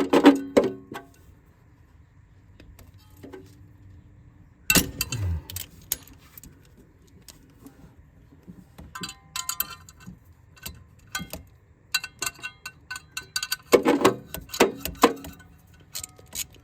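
A ratchet and 10 mm socket clicking in short runs of rapid ticks as a heat shield bolt is worked loose, with scattered metal clinks and knocks from the tool, in several separate bursts.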